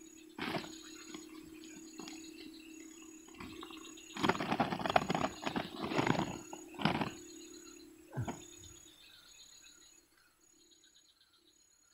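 Irregular rustling and handling noises from a plastic bag, loudest in a cluster from about four to seven seconds in and once more just past eight seconds, over a steady low hum that fades out near nine seconds. Faint insect chirring is left near the end.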